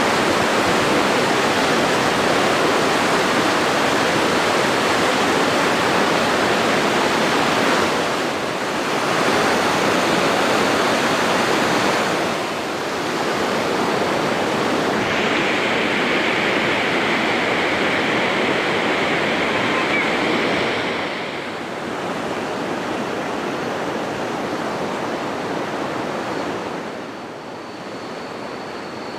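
Loud, steady rushing water, like surf or a waterfall. Its loudness and tone shift abruptly several times, and it grows quieter near the end.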